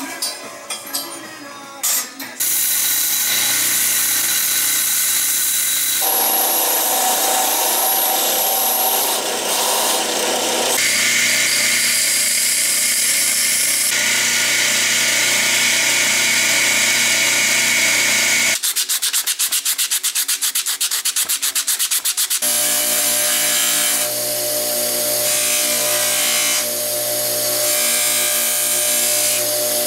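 Steel knife blades being ground on a 2x72 belt grinder: a loud, steady grinding hiss over a motor hum that changes at several cuts, with a stretch of rapid pulsing about two-thirds of the way through. Near the end a blade is polished on a 6-inch bench buffer. It opens with a few metal clinks.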